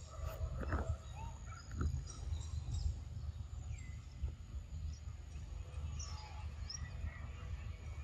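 Outdoor ambience of scattered bird chirps over a steady low rumble, with two short sharper sounds about one and two seconds in.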